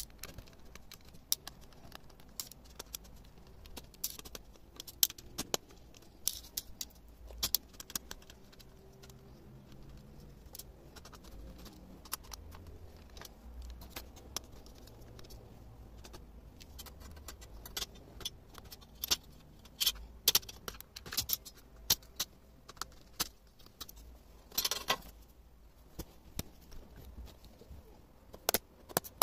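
Scattered small clicks and light metallic clinks of a laptop's screws, parts and small tools being handled during a motherboard swap, with a short scraping or rustling noise near the end.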